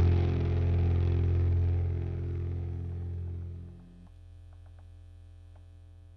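The last low note of an electric bass and backing track ringing out and fading away. About four seconds in the higher tones stop, leaving a faint low hum with a few light clicks.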